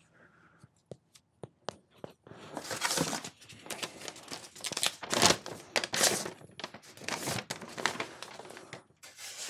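A sheet of paper rustling and crinkling as it is handled, in dense irregular bursts from about two seconds in, after a few light clicks.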